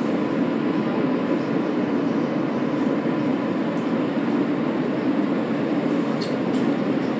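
Running noise inside an R143 subway car as it rolls slowly through an elevated station: a steady rumble of wheels and running gear with a faint steady high tone.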